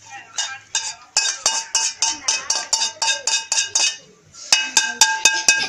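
An aluminium bowl or pot being struck over and over, a fast clanging at about six hits a second, each hit ringing. It pauses briefly near the four-second mark, then starts again.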